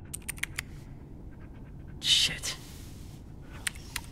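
Computer power button clicked several times in quick succession with no response, then pressed again near the end: the computer has no power.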